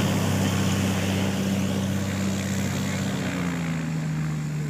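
Single-engine Cessna's piston engine and propeller running as the plane taxis away along a grass airstrip, the steady hum slowly growing fainter. The engine note drops slightly about three seconds in.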